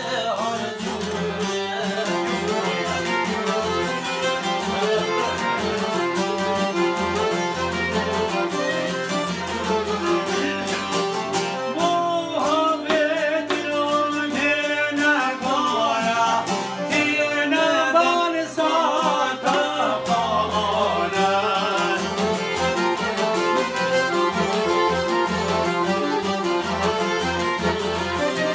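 Live Albanian folk song: a man singing over an accordion, a violin and plucked lutes.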